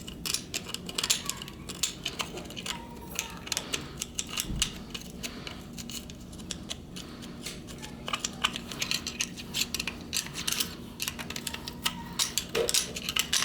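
Screwdriver scraping and clicking against the inside of a throttle body's air chambers as dirt and carbon deposits are cleaned out: irregular runs of light metallic clicks, busy for the first few seconds, sparser in the middle, then busy again near the end.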